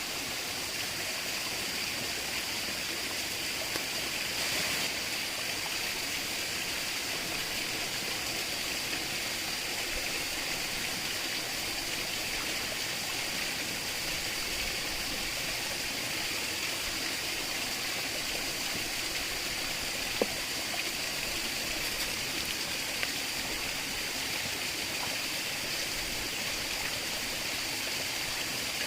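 Steady rushing of a flowing stream, with a couple of faint clicks about twenty seconds in.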